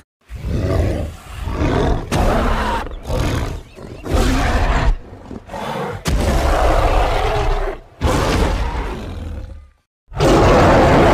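Film sound effects of a giant ape monster: a run of separate deep roars and grunts with short breaks between them. The longest runs for about two seconds midway, and another loud one starts near the end after a moment of silence.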